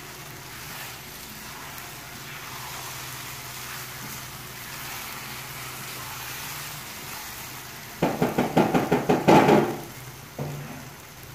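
Silicone spatula stirring and scraping sugary semolina vermicelli in a non-stick kadhai over a low sizzle. About eight seconds in comes a rapid run of knocks, roughly eight a second for about two seconds, then one more knock.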